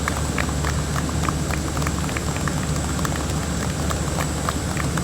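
Steady low engine hum with a crackle of short, scattered clicks, several a second.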